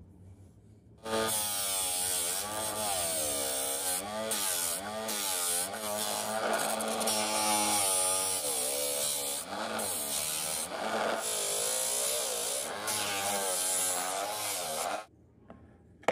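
Small homemade electric disc sander running with the edge of a stack of white sheets pressed against its sanding disc. The sanding hiss is joined by a motor whine that dips and recovers in pitch as the pressure changes. It starts about a second in and stops shortly before the end.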